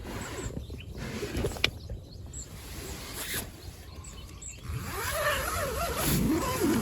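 Steady rain heard from inside a tent at night. Over the last two seconds or so an animal's wavering call comes in, louder than the rain.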